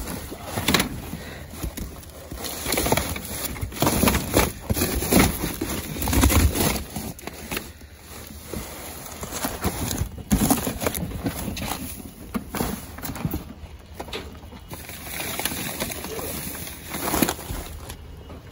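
Rummaging through dumpster trash: plastic garbage bags rustling and crinkling and cardboard boxes being pushed about, in irregular bursts with occasional knocks.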